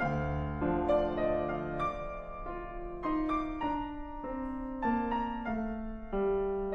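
Background piano music: a melody of notes changing every half second or so over held lower notes.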